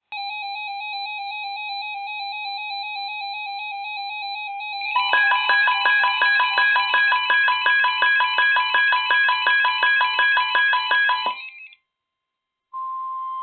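Weather radio alert alarms for a severe thunderstorm watch. A warbling electronic alarm sounds first, and about five seconds in a rapid beeping of about three beeps a second joins it. Both cut off near the end, and after a short silence the steady NOAA Weather Radio attention tone begins.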